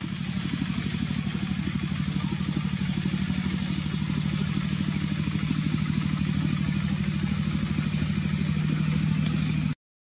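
A small engine running steadily, with a fast, even pulse and a low hum. It cuts off abruptly near the end.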